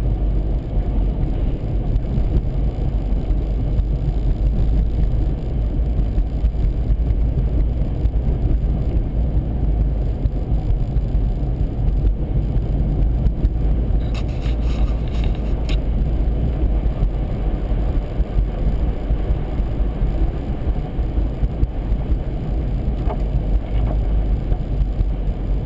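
Steady low rumble of a vehicle driving, heard from inside its cabin: engine, tyre and wind noise. A brief run of light clicks comes about fourteen seconds in.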